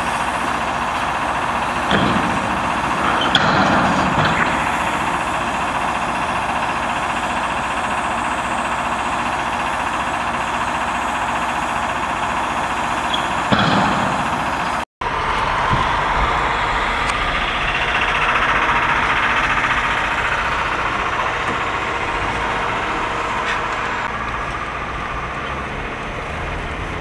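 Vacuum truck running steadily, its blower drawing spilled grain up a large suction hose: an even rushing noise with a few brief knocks. It drops out for an instant about halfway through.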